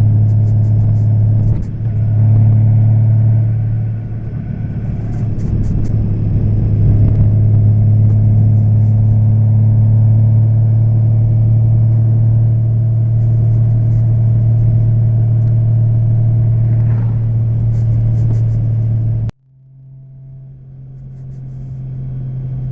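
Honda Valkyrie's 1832cc flat-six engine running steadily at cruising speed, a deep even drone. About 19 seconds in the sound cuts off suddenly, then returns as a quieter, slightly higher engine note that grows louder.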